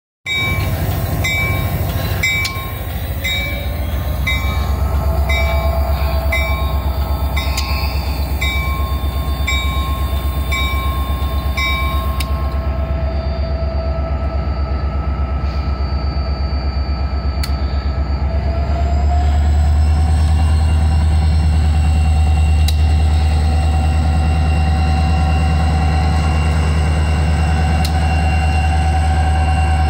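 Diesel locomotives passing close by: the EMD SD40-2's engine runs with a loud, deep, steady drone that grows louder about two-thirds of the way through, over the rumble of wheels on rail. A regular metallic ringing, a little more than once a second, runs through the first dozen seconds.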